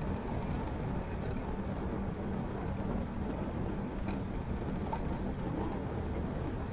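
Motorcycle engine running at a steady cruise, with a constant low rumble of wind and road noise from the moving bike.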